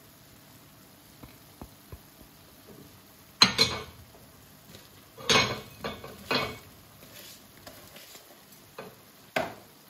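Kitchen dishes and utensils clattering: after a few quiet seconds with faint clicks, four short clatters, the first the loudest.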